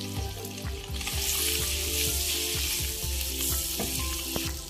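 Boiled eggs sizzling as they fry in hot mustard oil in a kadai, with a spatula stirring them and clicking against the pan. The sizzle grows louder about a second in.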